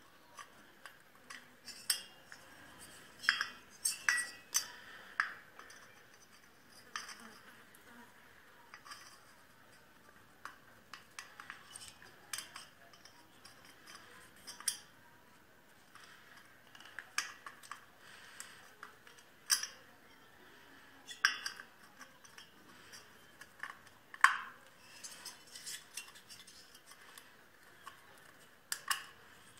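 Irregular light metallic clinks and taps of small engine parts and hand tools being handled, the loudest about two-thirds of the way through.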